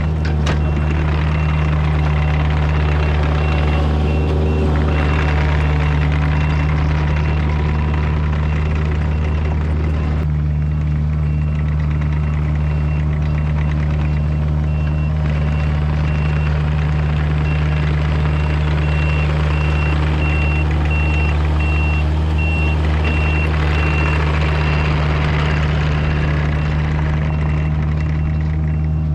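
Kubota U55-4 mini excavator's diesel engine running steadily, with its travel alarm beeping in an even repeating pattern that is plainest in the second half.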